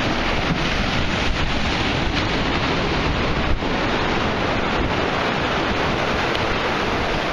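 Steady rush of sea waves and surf, mixed with wind noise on the microphone.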